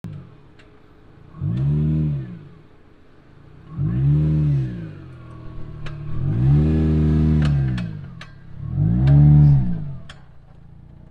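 Subaru Crosstrek's flat-four engine revving up and back down four times in short bursts, the third one held longer, as it crawls over a trail obstacle, with sharp clicks in between.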